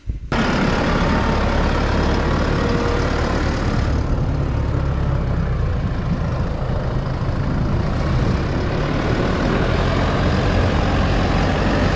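Heavy vehicle engine running steadily with a low rumble, starting abruptly right at the beginning and holding an even level throughout.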